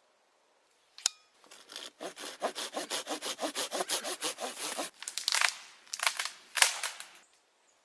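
Folding hand saw cutting a dead, dry branch with quick push-pull strokes, about five a second, then a pause and a few more strokes. A sharp crack near the end is the loudest sound.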